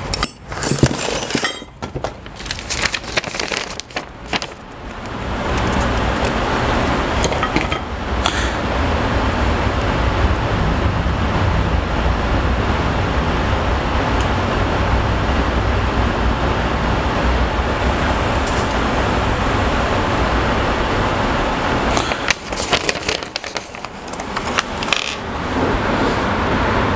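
Papers and small hardware being handled, with clicks and rustles, for the first few seconds and again about 22 seconds in. In between, a steady rushing noise fills the rest.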